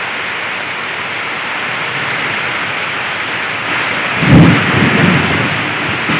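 Heavy rain pouring steadily in a storm, with a low rumble of thunder about four seconds in that is the loudest sound.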